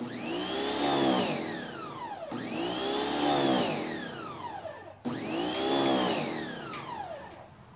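Pressure washer pump running in three short bursts, each rising and then falling in pitch, forcing water into a compressor tank to pressurise it for a hydrostatic test toward about 225 psi.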